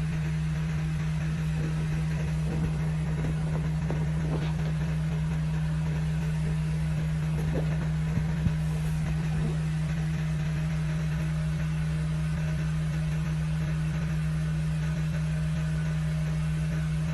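X-House ductless camping air conditioner (2388 BTU) running in its strong mode, at maximum fan and lowest temperature: a steady low hum with a constant drone and even fan air noise. A few faint knocks come in the first half.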